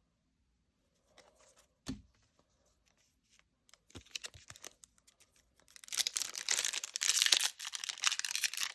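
Foil wrapper of a Pokémon trading-card booster pack being torn open and crinkled, a dense crackling that starts about six seconds in, after a single soft knock near two seconds.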